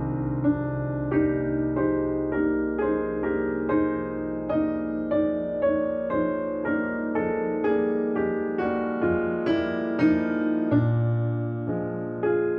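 Piano playing a slow melody of single notes, about two a second, over held low bass notes.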